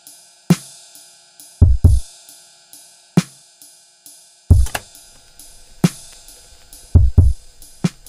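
Instrumental background music: a drum-kit beat with kick drum and hi-hat over a held chord.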